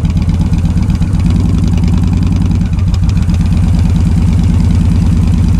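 Yamaha XVS1300 V Star's V-twin engine idling through loud Hard Krome drag pipes: a loud, steady, low pulsing exhaust beat.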